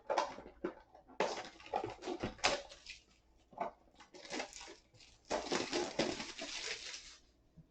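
Cardboard trading-card blaster boxes being torn open and handled: crinkling and tearing packaging in three longer bursts with a few short clicks between.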